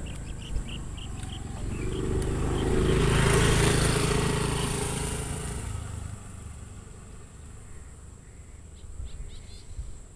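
A motor vehicle's engine passing by, swelling to a peak a few seconds in and then fading away. Small bird chirps are heard near the start and near the end.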